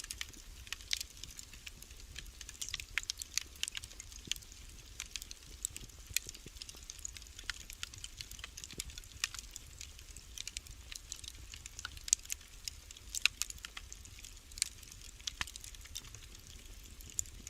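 Wood fire burning in a fireplace, crackling with irregular sharp pops and snaps over a faint steady hiss and low hum.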